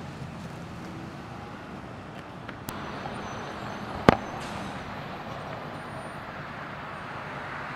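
Road traffic, a steady rush of passing vehicles, with a single sharp knock about four seconds in and a fainter click a little more than a second before it.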